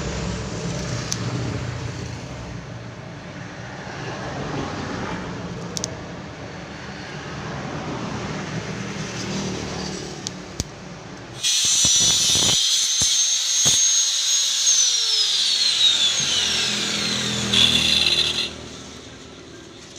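A power tool runs loudly with a high whine, then the whine slides steadily down in pitch as it slows, and the sound cuts off about eighteen seconds in. Before it starts there is only a steady, moderate background noise.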